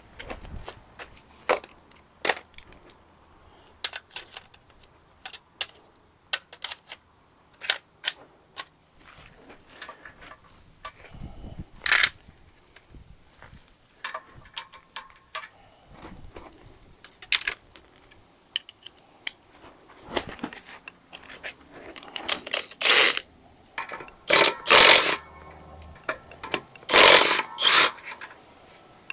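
Hand tools and metal parts clinking and knocking during work on a Big Cam Cummins diesel engine, with several louder, harsher bursts of about a second in the second half.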